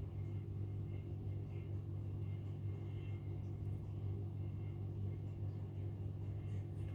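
A steady low hum with a faint, steady high whine above it, unchanging throughout.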